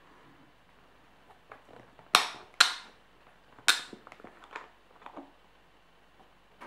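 Three loud, sharp cracks, the first two about half a second apart and the third about a second later, followed by a scatter of fainter clicks.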